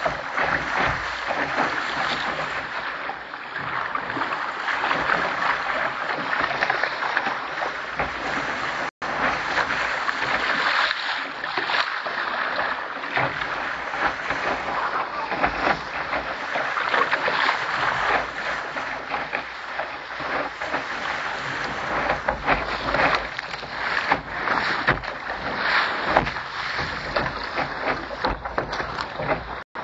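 Water rushing and splashing against the hull of a Contender sailing dinghy moving under sail through choppy water, a loud uneven wash that cuts out for an instant about nine seconds in.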